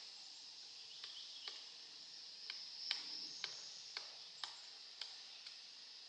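Pileated woodpecker pecking into a rotting fallen log while foraging, single sharp knocks on the wood about two a second, uneven in strength, the loudest about halfway through.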